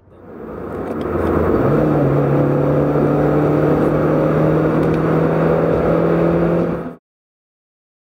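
A Honda's four-cylinder engine, heard from inside the cabin, pulling hard at highway speed once fully warmed up: the revs jump up about a second and a half in, to around 4,600 rpm, and hold steady. This is an 'Italian tune-up', working the engine hard. The sound cuts off abruptly about a second before the end.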